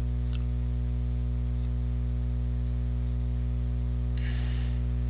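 Steady low electrical hum made of several even tones, with a faint click about half a second in and a brief hiss near the end.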